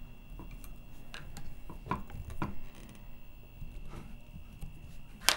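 Light clicks and knocks of hand-work on a Stepcraft CNC's Z-axis roller-bearing connector and aluminium linear track as it is adjusted with a 2.5 mm Allen key and handled. A single sharp click near the end is the loudest sound.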